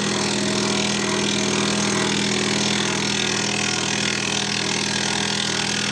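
Variable-frequency tobacco cutting machine running steadily while it shreds tobacco: a constant motor hum with a fast, even chatter over it.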